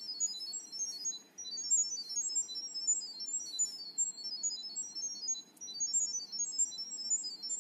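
Smartphone speaker playing a rapid, unbroken stream of short high-pitched beeps that jump between pitches. This is the NetCam app's sound-wave pairing signal, which carries the Wi-Fi details to the IP camera during first-time setup.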